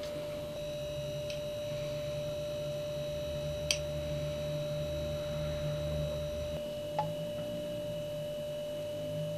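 A steady electrical hum with a thin, constant high tone over it, and two faint clicks, one about four seconds in and one about seven seconds in.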